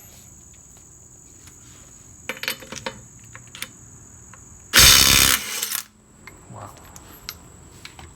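DeWalt DCF902 12 V Xtreme 3/8-inch cordless impact wrench hammering in reverse for about a second, breaking a lug nut loose with ease. A few light metallic clicks come a couple of seconds before it, and crickets chirr steadily in the background.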